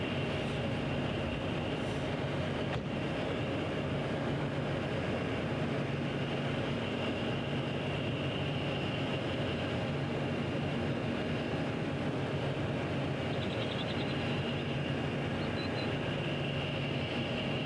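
Diesel engine idling steadily: a low, even hum with a thin, steady high whine above it.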